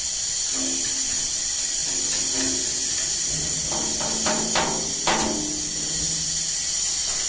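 Background music with short pitched notes and a few percussive strokes, over a steady high hiss.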